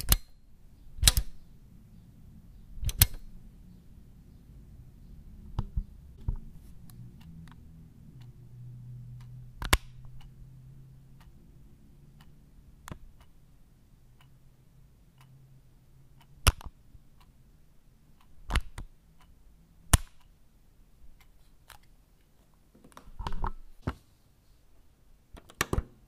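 Various on/off switches being pressed: about a dozen sharp, separate clicks a few seconds apart, some coming in quick pairs or short clusters. A faint low hum sits under the clicks in the middle stretch.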